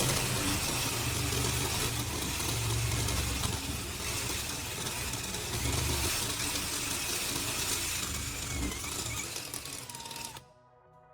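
A small power tool's motor running steadily, cutting off abruptly near the end.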